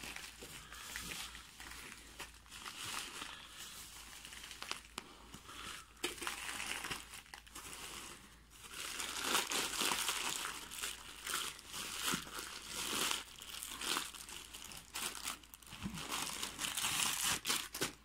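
Bubble wrap and plastic packaging crinkling and rustling as hands pull it off a stainless steel kettle, uneven and stop-start, with a few sharper crackles.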